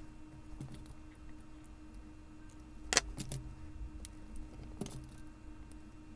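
Small metallic clicks and jingling of a copper chain and jewelry wire being handled with flush cutters and pliers while wire-wrapping a bead loop. A sharp click about three seconds in and another near five seconds.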